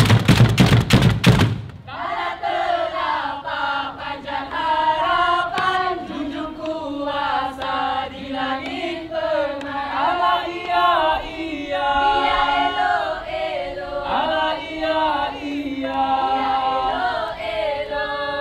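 Rapid drum strikes for the first second and a half, then voices singing a slow, chant-like melody with long, bending held notes and no drums behind them.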